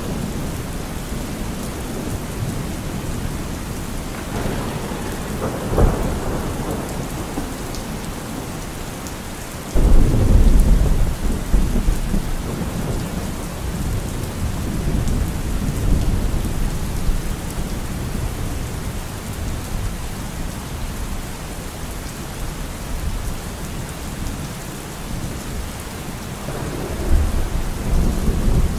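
Steady rain with rolling thunder: a rumble with a sharp crack about six seconds in, a sudden loud peal about ten seconds in that rumbles on for several seconds, and another rumble near the end.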